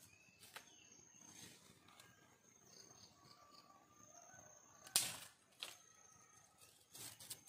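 A dry branch snapped by hand with one sharp crack about five seconds in, followed by a few smaller cracks and clicks near the end as the pieces are worked apart. Faint bird chirps and a steady high insect tone sit underneath.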